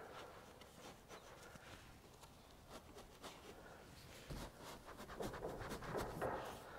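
Faint rustling and scraping of a wooden frame being pushed down over an Owens Corning 703 fiberglass insulation board, with a few light knocks of wood, busier and louder in the second half.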